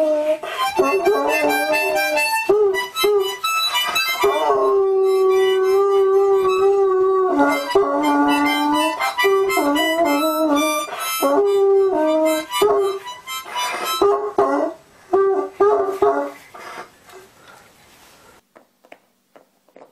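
A small child blowing chords on a harmonica while a hound howls along, its howls sliding up and down over the harmonica notes. Both break up and stop near the end.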